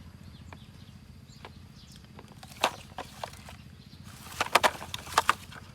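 Scattered sharp clicks and knocks, most of them bunched together a little past four seconds in, over a steady low hum.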